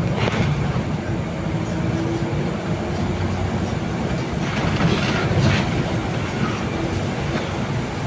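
Interior ride noise of a Solaris Urbino 18 articulated city bus under way: a steady drivetrain hum and tyre noise on a wet road, with a few short rattles about five seconds in.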